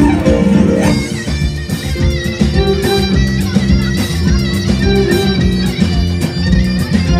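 A Turkish traditional music ensemble playing live through stage loudspeakers, with plucked strings to the fore over a steady beat.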